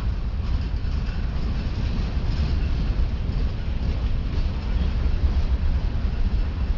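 Ferromex freight train rolling past: a steady, heavy rumble of railcars on the track, with no horn sounding.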